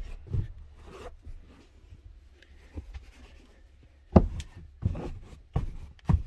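Caravan seat cushions being handled and put back onto the bench: fabric rubbing and shuffling, with several dull thumps, the loudest about four seconds in.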